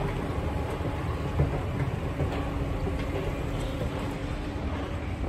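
Subway-station escalator machinery running with a steady low rumble and a faint hum.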